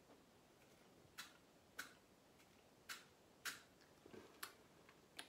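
Faint, short spritzes of a small pump-spray bottle of oral vitamin D3 spray being pumped into the mouth, about six, spaced irregularly half a second to a second apart.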